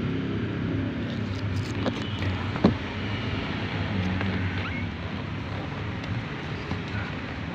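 Steady low hum of a vehicle engine running, with a single sharp click a little under three seconds in.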